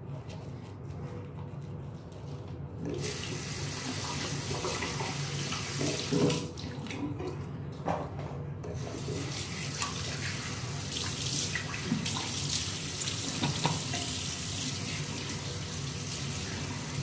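Water from a tap running into a bathroom sink as a soapy face is rinsed by hand, with splashing. The tap comes on about three seconds in, and the flow breaks off for about two seconds midway before running again.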